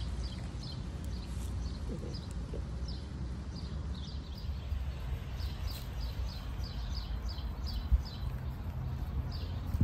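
Small birds chirping: many short, high, falling notes, coming several a second in the middle, over a low steady rumble. One brief bump about eight seconds in.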